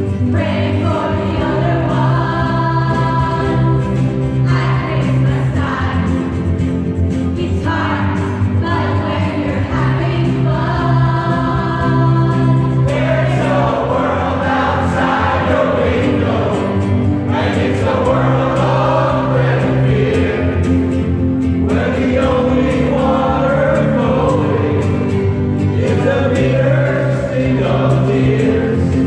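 Amateur mixed choir singing a pop Christmas song along to a backing track, with held sung notes over a steady bass line.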